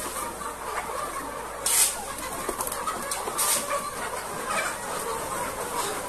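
A large flock of chickens clucking and chattering, with two short bursts of noise about two and three and a half seconds in.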